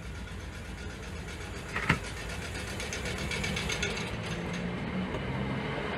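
South Western Railway suburban electric multiple unit pulling away from the platform: a steady low hum of motors and wheels on rail that slowly grows louder, with a single sharp clank about two seconds in.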